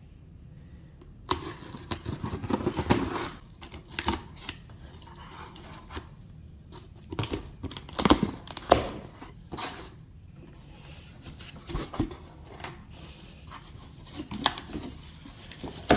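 A cardboard shipping box being opened and unpacked by hand: packing tape tearing, cardboard and packaging rustling and scraping, with scattered sharp knocks and clicks.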